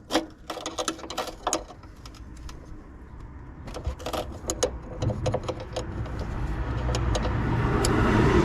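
Quick metallic clicks and taps from a spanner tightening a brake hose fitting, then a passing car's engine and tyres growing louder over the last few seconds.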